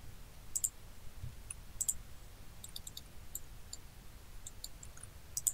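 Computer mouse clicking: a dozen or so short, sharp clicks scattered irregularly, several in quick pairs, over faint low room hum.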